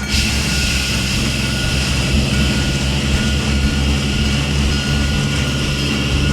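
Steady rushing, hissing vehicle-like sound effect that starts suddenly and holds for about six seconds, over background music with a steady low bass.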